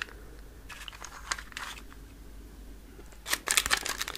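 Crinkly packaging being handled: a faint rustle, then loud dense crinkling starting about three seconds in.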